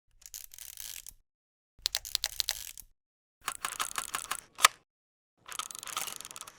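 Camera shutter sound effects: four bursts of rapid mechanical shutter clicks, separated by short silences. The third burst ends in one loud single click.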